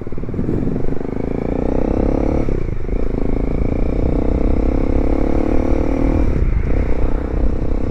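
Bajaj Dominar 400's single-cylinder engine running through an aftermarket Yoshimura exhaust pipe with its silencer insert removed, under way. The note climbs gently and dips briefly twice, about two and a half and six and a half seconds in.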